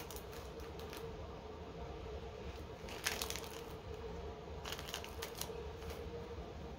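A few short, breathy sniffs as a perfume tester strip is smelled, with light paper handling, over a faint steady hum.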